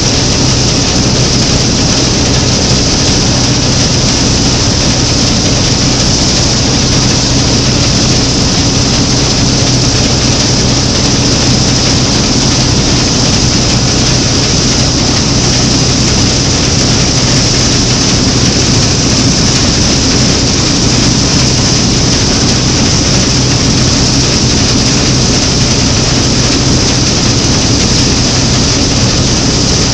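Claas Matador Standard combine harvester running steadily under load while harvesting triticale, its engine, reel and threshing gear making one loud, unbroken drone heard close up from the driver's platform.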